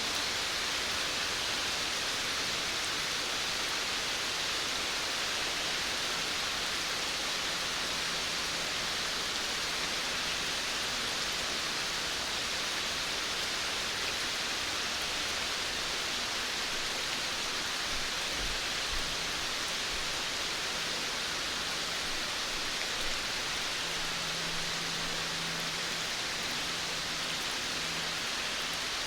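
Steady rain falling on a veranda: an even, continuous hiss of many drops.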